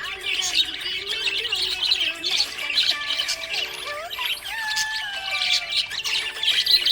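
Budgerigar chirping and warbling in a steady, unbroken stream of quick, high chirps with gliding notes.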